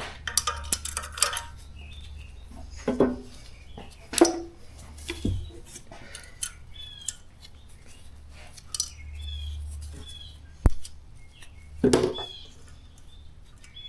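Irregular metal clinks, taps and knocks of steel valve-train parts and tools as valve springs, retainers and keepers are fitted onto an LS cylinder head, over a low steady hum.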